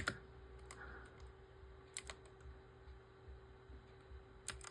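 A few scattered computer keyboard keystrokes: one at the start, one under a second in, a pair about two seconds in and two more near the end, over a faint steady hum.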